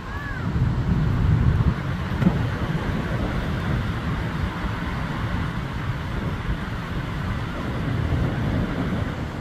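Steady rush of churning water from a dam's outflow, with wind gusting on the microphone as a heavy, uneven low rumble.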